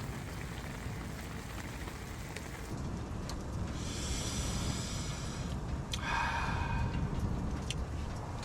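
Steady low wind rumble on the microphone, with a few light clicks and two short hisses, the first higher, about three and six seconds in.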